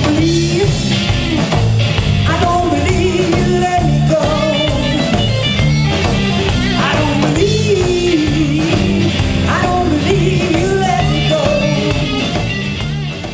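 Blues-rock band playing live: a woman singing over electric guitar, bass guitar and drums with a steady beat. The music fades out near the end.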